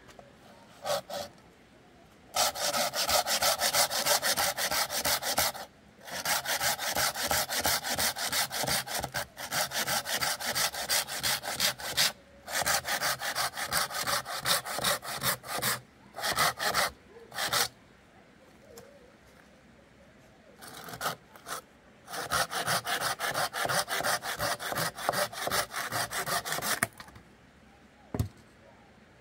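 Hand saw cutting through a tree branch in quick back-and-forth strokes. The sawing comes in several spells of a few seconds each, with short pauses between them.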